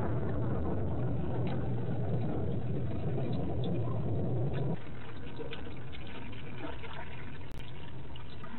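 Rain on an outdoor webcam microphone: a dense, steady hiss with a deep rushing undertone. About halfway through it switches abruptly to quieter, thinner rain with scattered drips.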